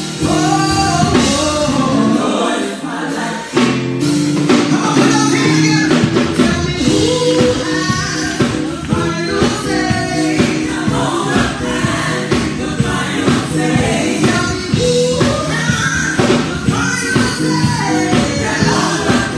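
Live gospel music: a group of women singing together in harmony into microphones over band accompaniment. A steady beat comes in about four seconds in.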